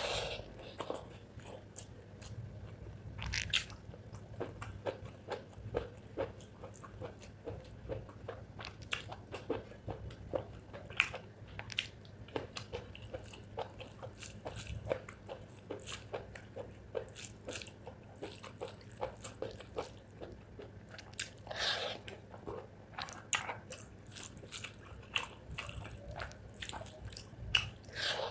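Close-up chewing of spicy chicken gizzard and rice: a steady run of short, irregular mouth clicks, with a few louder bites, one about three seconds in and another near twenty-two seconds.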